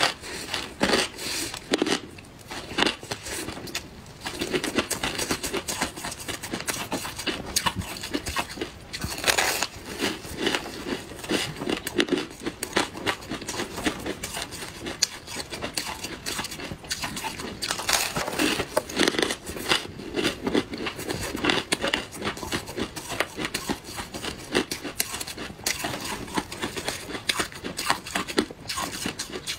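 Crunching and crackling of packed coarse crushed ice being bitten, chewed and broken apart by hand, in a dense, irregular run of crisp crunches.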